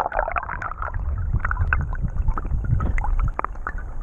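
Flowing creek water heard through an action camera's microphone held underwater in a riffle: a muffled low rumble with scattered bubbly clicks and gurgles, the rumble growing stronger about a second in.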